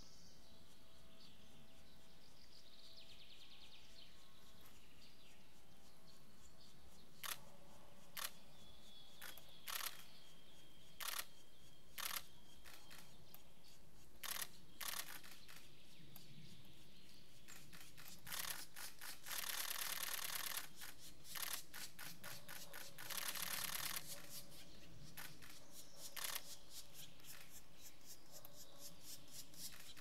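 Camera shutter firing: a series of single clicks a second or so apart, then two rapid bursts of continuous shooting, one about two seconds long and one about a second long.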